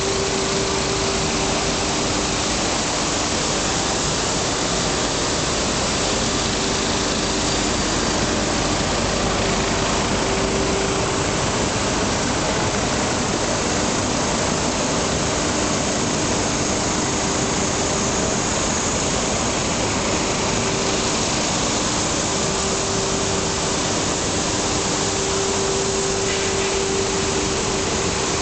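Colines 200 bubble film sheet extrusion line running in production: a steady, loud industrial machine noise with a one-pitch hum that swells and fades.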